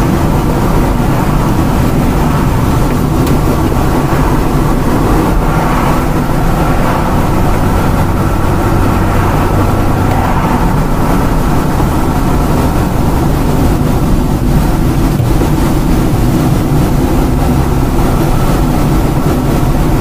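Road noise of a moving car heard from inside the cabin: a steady low rumble of engine and tyres on asphalt.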